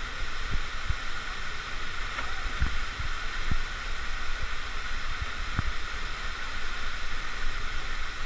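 Steady rush of a waterfall pouring into a rock pool, with a few short low thumps through it.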